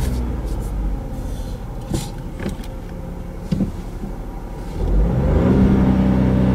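Volkswagen Polo's 1.0-litre turbocharged inline three-cylinder engine being revved while stationary. The revs fall back to idle in the first second, the engine idles with a few sharp clicks, then it is revved up again about five seconds in and held high.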